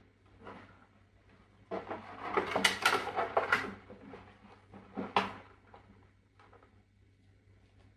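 Gaff tape being pulled and pressed onto a cardboard box: a rustling stretch of tape and cardboard handling beginning about two seconds in and lasting about two seconds, with a few light clicks and a sharp knock about five seconds in.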